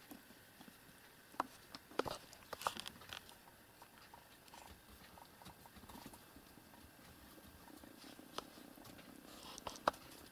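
A cat washing a kitten: faint rustling of fur and bedding with scattered small sharp clicks and knocks, a cluster of them about one and a half to three seconds in and a couple more near the end.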